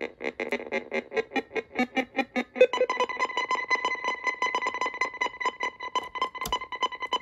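DIY Random Tone Machine playing a rapid stream of short electronic beeps at random pitches, about six or seven a second, in the style of a retro film computer. About two and a half seconds in, the tones jump to a higher pitch range, and a single sharp click sounds near the end.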